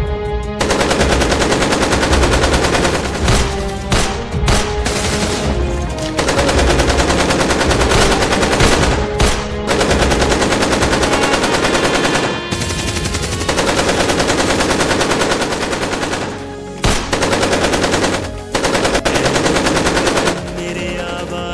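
Automatic rifle fire in long rapid bursts, broken by short pauses.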